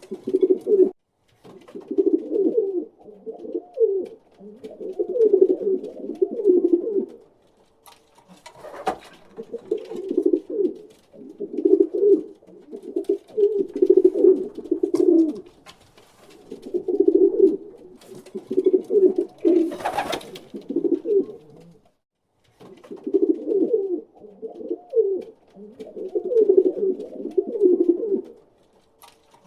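Pigeons cooing over and over in low, throaty phrases of one to a few seconds each, with short pauses between. A brief noise cuts across the cooing about nine seconds in and again about twenty seconds in.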